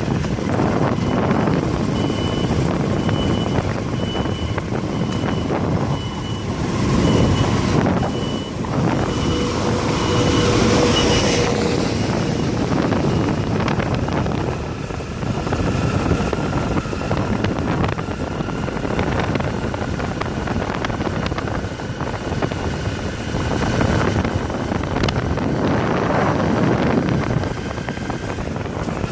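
Motorcycle engine running and wind rushing past while riding. Over it, a construction vehicle's reversing alarm beeps repeatedly for the first ten seconds or so, then stops.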